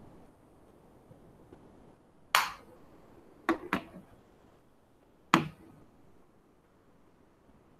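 Four sharp clicks over faint background hiss: one about two seconds in, a quick pair about a second later, and a last one about five seconds in, each dying away quickly.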